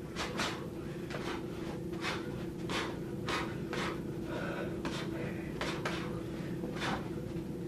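Fists in pink hand wraps punching against a man's open palms in a quick, irregular series of sharp slaps, often as one-two pairs. A steady low hum runs underneath.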